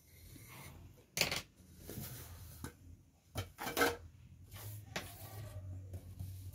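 A handful of short rustles and scrapes of paper being handled on a table, as a paper plate is lifted off a sheet of drawing paper and a ruler is laid on it.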